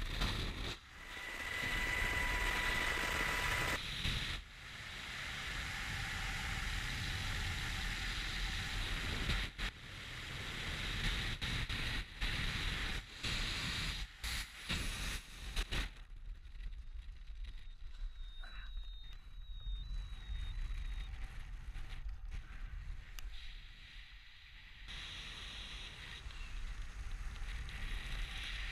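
Wind rushing over a helmet-mounted GoPro's microphone during a freefall parachute jump, a steady rushing noise with a deep rumble. It briefly cuts out a few times, and it is quieter for several seconds past the middle before it rises again.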